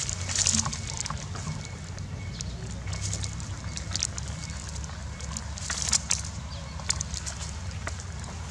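Dry palm fronds crackling and rustling in scattered clicks as dogs shift and chew on them, over a steady low rumble.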